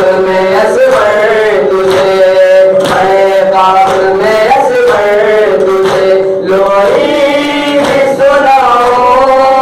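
A noha lament sung by male voices in a slow, chant-like melody, with the rhythmic slaps of chest-beating (matam) in time with it.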